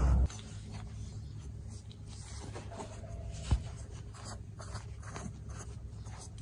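Rustling and light scratching as a Staffordshire bull terrier puppy clambers over a person's clothes and is petted, with one sharp tap about three and a half seconds in.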